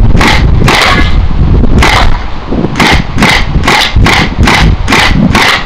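Western Arms SCAR gas-blowback airsoft rifle firing about a dozen single shots, a few spaced out at first, then an even run of two to three shots a second from about three seconds in.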